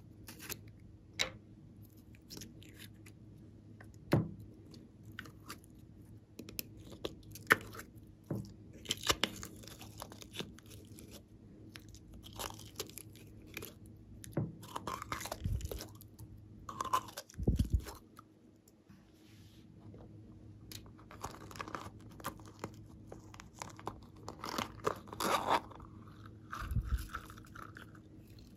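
Slime-making materials handled by hand: plastic jars and lids clicking and tapping, with crackly, crunchy squelching as jelly slime is squeezed out of a small plastic container, and a short squeak near the end.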